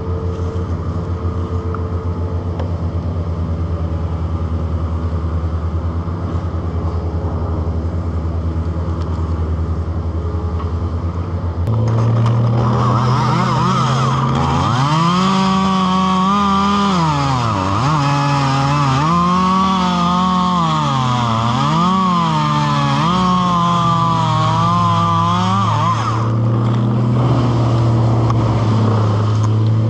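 Two-stroke chainsaw idling, then throttled up about twelve seconds in and cutting. Its pitch sags and recovers several times as the chain loads in the wood, then steadies near the end.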